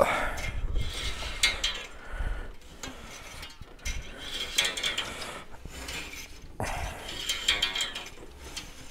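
Glass-removal cutting wire sawing through the urethane bonding of a glued-in van window, pulled in several strokes that twang and squeal like a badly tuned guitar.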